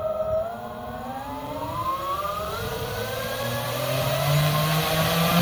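The four electric motors and propellers of a giant-scale RC Martin 130 Clipper flying boat spinning up as the throttle is advanced, a whine rising steadily in pitch and growing louder.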